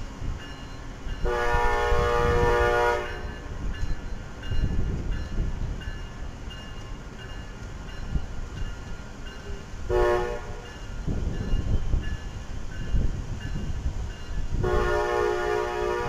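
Locomotive air horn sounding a chord of several notes: a long blast, a short blast about eight seconds later, and another long blast near the end, over the low rumble of a train.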